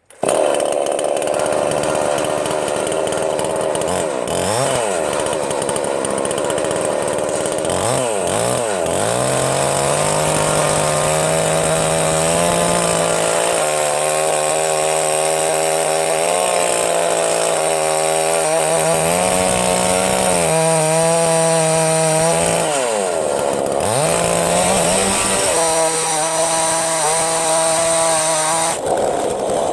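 Proyama two-stroke gas chainsaw running at high revs in an Alaskan chainsaw mill, cutting through a pine log. Its engine pitch dips and recovers several times as the load changes.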